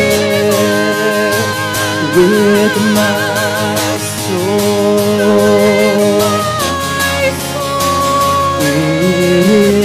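Live song with acoustic guitar and singing, the voice holding long notes with vibrato.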